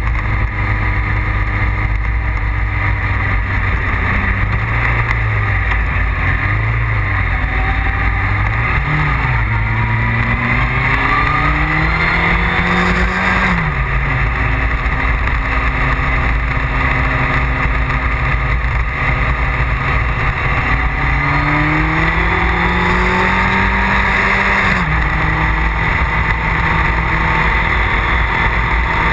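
Motorcycle engine heard from on the bike, under a constant low wind rumble on the microphone. The engine pitch wavers through bends, climbs under acceleration and drops sharply at a gear change about halfway through, then climbs and drops again near the end.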